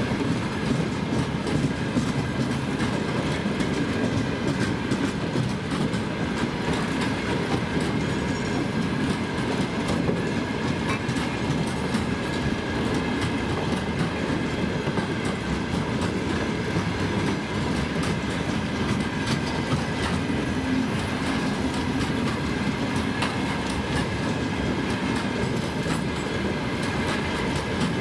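Freight train wagons rolling past at steady speed: a continuous rumble of wheels on rails, dotted with rapid clicks over the rail joints, and a faint steady tone above it.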